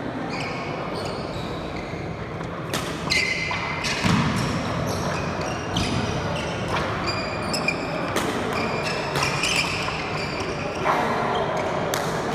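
Badminton rally: sharp racket strikes on the shuttlecock about once a second, with short high-pitched squeaks of sports shoes on the wooden court, echoing in a large hall.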